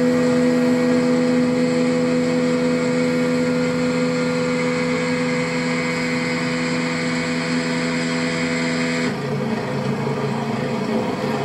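An engine running at a steady speed. About nine seconds in, the sound changes suddenly to a rougher, lower one.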